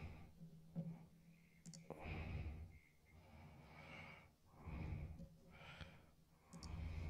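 A man breathing softly close to a microphone, with a breath every second or two. There are two faint clicks.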